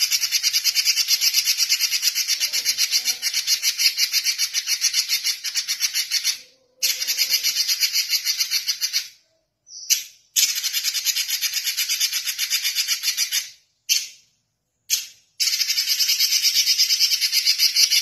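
Red-billed leiothrix (Pekin robin) singing in full voice: long, rapid, high trills in several extended phrases broken by short pauses.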